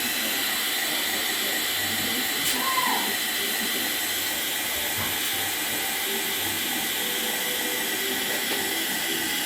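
Steady hiss of static from a Sony Bravia TV's speakers.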